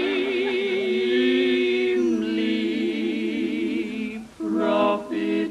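Three women's voices singing in close harmony, holding long notes with vibrato. The chord changes about two seconds in, breaks off about four seconds in, and short detached chords follow.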